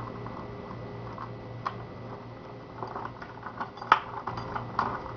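Small metal lock parts of a rim cylinder being handled and fitted, giving irregular light clicks and taps that grow busier partway through, with one sharp click about four seconds in. A steady low electrical hum lies underneath.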